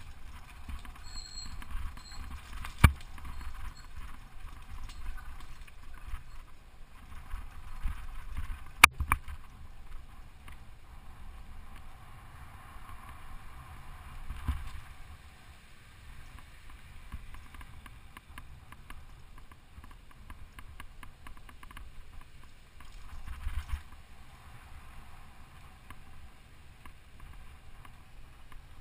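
Mountain bike riding over a dirt forest trail, heard from a camera mounted on the bike: a steady rumble and rattle of tyres and frame over the ground, with two sharp knocks from bumps, one about three seconds in and another about six seconds later.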